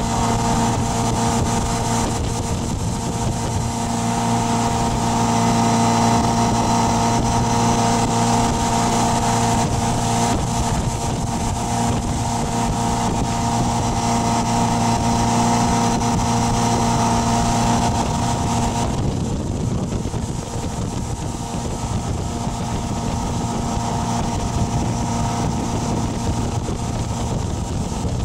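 Tow boat's engine running steadily under way, with wind rushing on the microphone. About two-thirds of the way through, the engine's higher tones fall away and its note changes.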